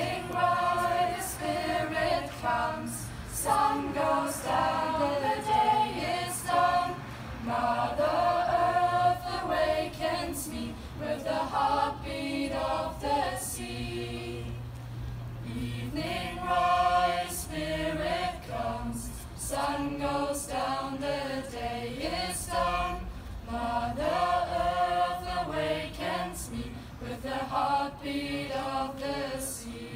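Mixed youth choir singing a cappella, in sung phrases with short pauses between them.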